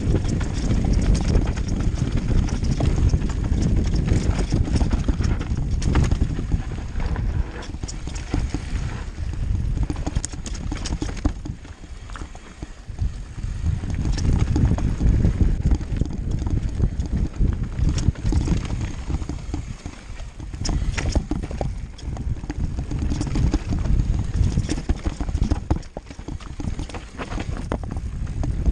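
Mountain bike descending a rough dirt trail, with wind rumbling on the microphone and the bike rattling and knocking over bumps. The rumble swells and fades with speed, dipping briefly a few times.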